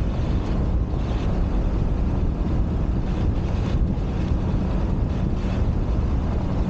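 Wind buffeting the microphone over the steady low rumble of a 1999 Ford F-250 pickup driving along a dirt road.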